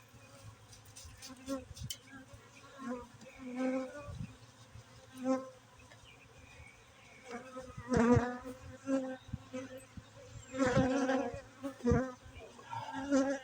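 Honeybees buzzing close around the microphone, single bees zooming past one after another in loud swells that rise and fade, loudest about eight and eleven seconds in. The colony is agitated, a little on the pissy side, as the hive is opened.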